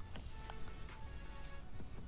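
Quiet background music of held notes, with a faint click about half a second in.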